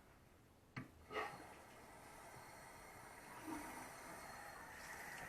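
A sharp click, then a steady hiss of water rushing through the faucet supply line as the under-sink shutoff valve is opened.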